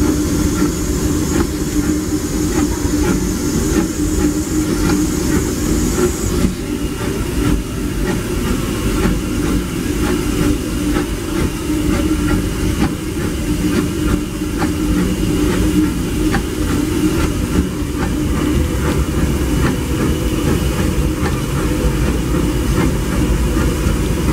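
Disneyland Railroad steam train running along the track, with a steady rumble and a continual clicking of wheels over the rail. A high hiss runs over it and stops abruptly about six seconds in.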